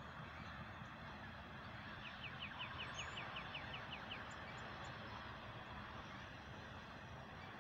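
Intermodal freight train rolling past with a steady rumble of wheels on rails. About two seconds in, a bird gives a rapid series of about a dozen short high notes, roughly six a second, lasting about two seconds.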